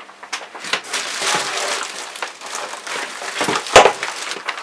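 Cardboard and plastic packaging crinkling and rustling as kit parts are unpacked, with a sharp knock a little under four seconds in.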